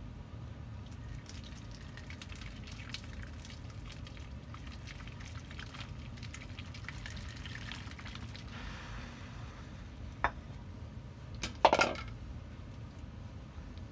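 Hot water trickling from a stainless steel saucepan through a funnel into a plastic container of dry caustic, with a faint crackling fizz. Just after ten seconds there is a click, then the steel saucepan is set down with a sharp clank and a brief ring, the loudest sound.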